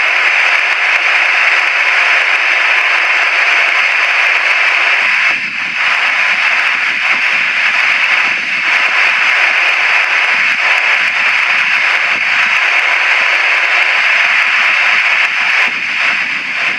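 Steady, loud hiss-like roar of a distant Boeing 737-800's CFM56 turbofan engines at taxi power. A lower, uneven rumble joins about five seconds in.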